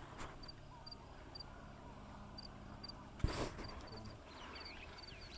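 Outdoor ambience: short high chirps, often in pairs, repeating a few times a second over a steady low hum, with one sharp knock about three seconds in.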